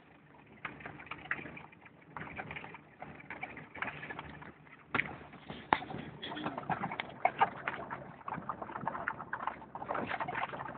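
Vehicle cabin rattling and knocking as it lurches slowly over a rough, rocky dirt track, with dense irregular clicks and bangs that get busier about halfway through.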